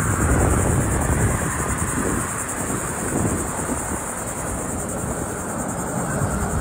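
A steady high-pitched insect drone over a low, uneven rumble of wind buffeting the phone microphone.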